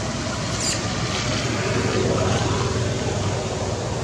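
Steady low rumbling background noise, with faint high chirps near the start.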